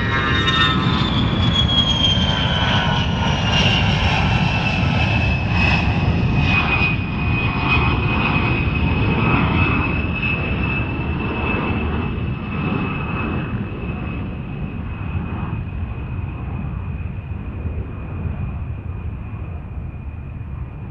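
Jet airplane engine roaring steadily. A high whine falls in pitch over the first several seconds, then holds steady, and the roar slowly fades through the second half.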